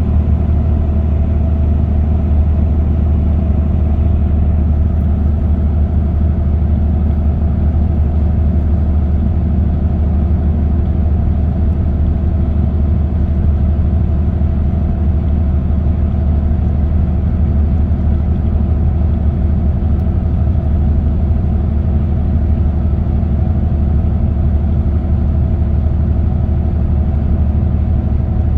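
Car cruising steadily at highway speed: a constant engine and road-noise drone with a strong low hum and no change in pitch.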